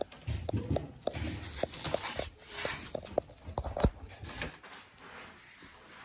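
Irregular knocks, clicks and rustling of hands working at a reptile enclosure and setting down a food tray of raw chicken, the loudest knock near four seconds in; quieter after about four and a half seconds.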